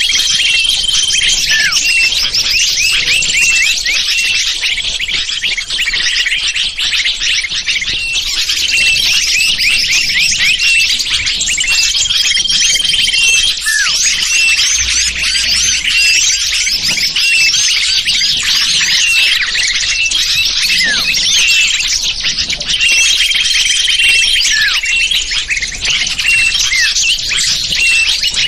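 Bird-lure recording of many small birds chirping and twittering in a dense, continuous chorus of quick high squeaks and trills. A short held whistle recurs about every 11 seconds, as the recording loops.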